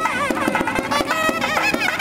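Nadaswaram playing a sliding, ornamented melody over tavil drums beating a brisk rhythm of sharp strokes.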